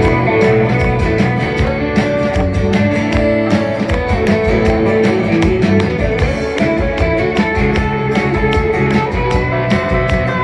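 Live rock band playing at full volume with a steady drum beat. An electric guitar on a 1961 Fender Stratocaster plays lead lines with held notes over acoustic guitar, bass and drums.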